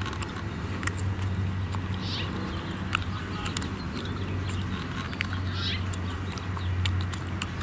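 Quiet outdoor background: a low steady hum with scattered faint clicks and two brief high-pitched calls a few seconds apart.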